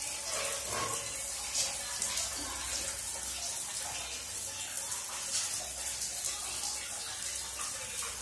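Overhead shower running, a steady spray of water falling onto a dog being bathed.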